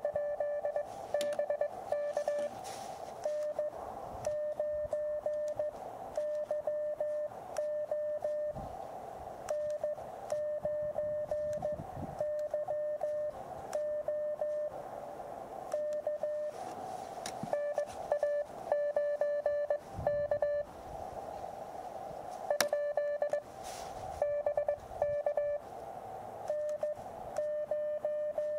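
Morse code (CW) from an Elecraft KX2 transceiver's speaker: a steady mid-pitched beep keyed on and off in dits and dahs, in groups with short pauses between them. Receiver hiss fills the gaps.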